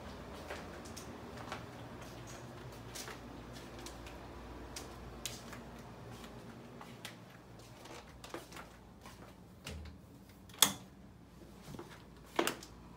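Faint room hum with scattered light clicks and knocks from a handheld phone being carried and footsteps on a hardwood floor. Two sharper knocks come near the end.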